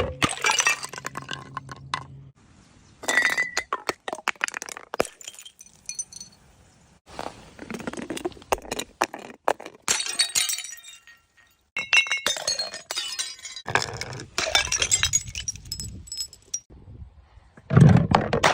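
Glass bottles shattering one after another: about half a dozen separate crashes a few seconds apart, each followed by the clinking and clattering of broken glass.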